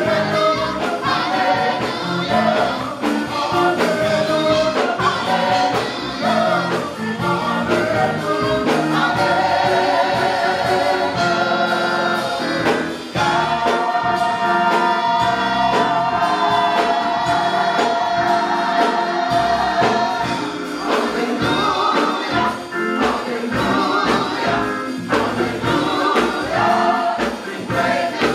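A gospel choir singing, many voices together, with a long held chord from about 13 to 20 seconds in.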